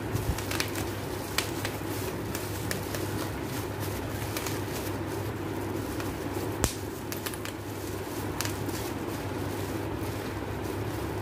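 Plastic bubble-wrap packaging being handled and crinkled, giving scattered crackles and clicks, one sharp click about six and a half seconds in, over a steady low hum.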